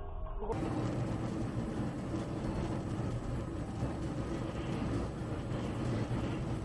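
Steady road noise inside a car driving on a wet highway, as picked up by a dashcam.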